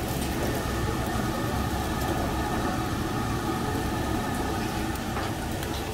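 Steady low drone of the copper extraction hood's fan running over a charcoal grill, with a few faint steady tones above it.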